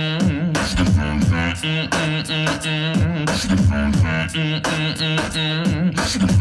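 Live beatbox performance into a handheld microphone: sharp vocal drum hits in a steady beat over a sustained low vocal bass line, with wavering sung notes layered on top.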